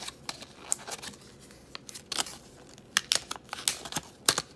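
Thin clear plastic packaging crinkling and clicking in the fingers as a fountain-pen ink converter is worked out of its plastic sleeve, in irregular small crackles and ticks.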